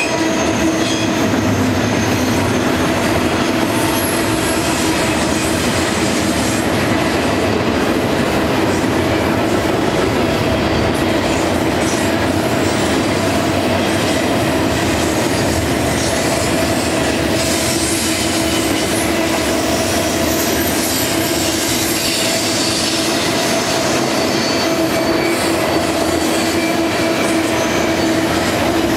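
Double-stack intermodal freight train's well cars rolling past at steady speed: a continuous rumble of steel wheels on rail with a steady squeal of wheels grinding against the curving rail.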